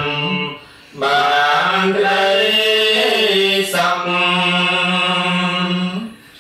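Khmer Buddhist monks chanting a devotional verse in the melodic sarabhañña style, in long held low notes that bend slightly in pitch. There is a brief pause for breath about half a second in and another near the end.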